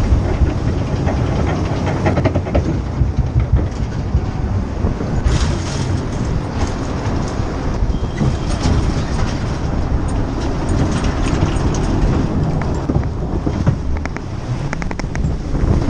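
Jungle River water ride's boat running along its track: a steady low rumble with mechanical rattling and clicking.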